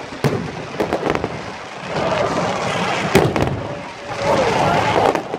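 Fireworks display: several sharp bangs of varying loudness, the loudest about three seconds in, over continuous crackling and hiss from the shells.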